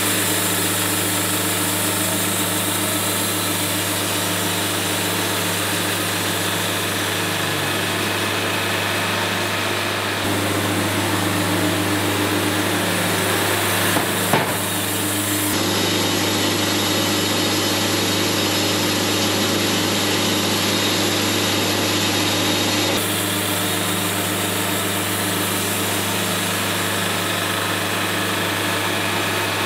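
Wood-Mizer Super 70 band sawmill running steadily, its engine humming under the hiss of the band blade cutting through a log. A brief knock comes about halfway through.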